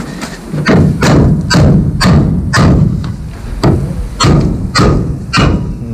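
Hammer blows knocking a timber piece into the caravan's wall frame: about ten sharp knocks on wood, roughly two a second.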